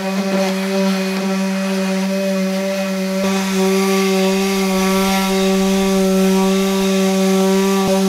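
Electric sander running steadily on cedar deck boards, a constant motor hum with a rasp of the paper on the wood. It grows fuller about three seconds in as it bears into the boards.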